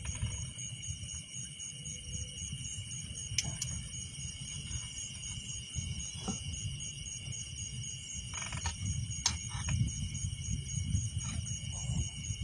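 Steady chorus of night insects, several high trilling tones at once, over a low rumble, with a couple of sharp clicks.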